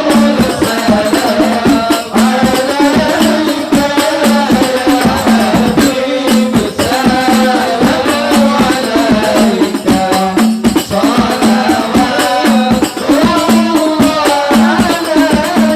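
Devotional music: voices singing a wavering melody over a steady, busy rhythm of hand-struck frame drums and jingles.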